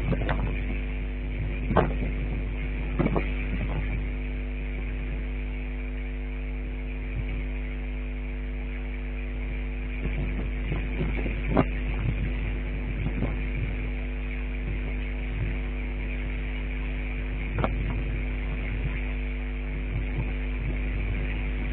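A steady electrical or motor hum, even in pitch throughout, with a few short sharp clicks or knocks scattered through it.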